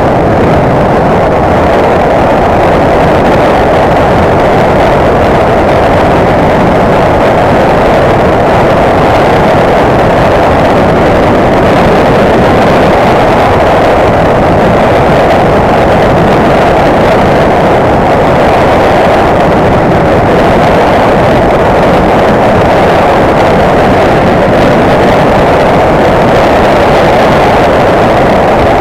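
Motorcycle riding at a steady speed: a loud, even roar of wind over the microphone mixed with the engine running.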